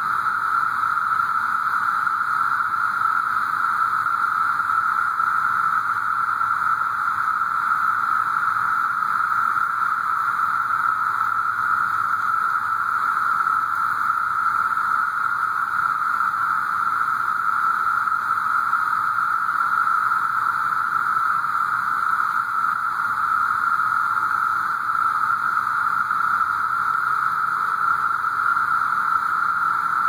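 Dense chorus of cicadas in the trees: one steady, unbroken, mid-pitched drone that neither rises nor falls.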